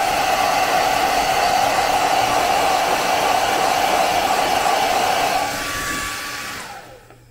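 Conair 1875 hand-held hair dryer blowing steadily, then switched off near the end, its motor whine falling in pitch as it winds down.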